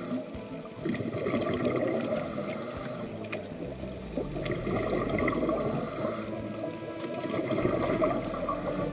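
Underwater sound of a scuba diver breathing through a regulator: a hiss about every three seconds with bubbling in between. Humpback whale song runs faintly in the background.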